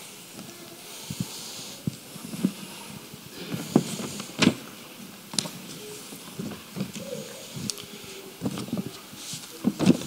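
Scattered thumps, clicks and rustles over a faint hiss: footsteps and handling noise as people move about a stage with a microphone in use.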